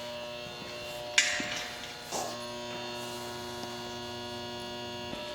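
Steady electrical hum made of several even tones, broken by a sharp knock about a second in and a softer knock about two seconds in.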